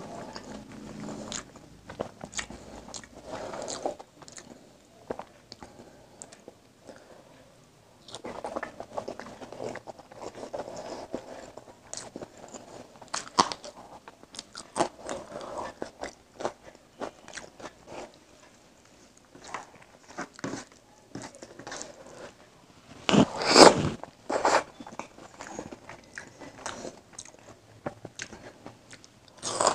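Close-up mouth sounds of a person eating curry and rice: chewing with many crisp, crunchy bites and small clicks, irregular with short pauses, the loudest a brief noisy stretch about twenty-three seconds in.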